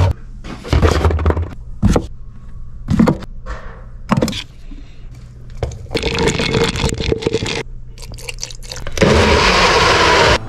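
Knocks, scrapes and clatters as ingredients go into a blender jar, then a countertop blender running near the end, the loudest sound, cutting off abruptly.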